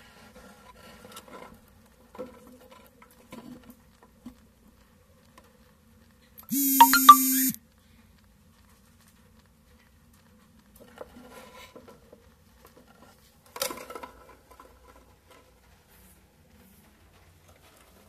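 A loud, steady buzzing tone, flat in pitch, lasting about a second a little over six seconds in, among faint scattered rustling sounds.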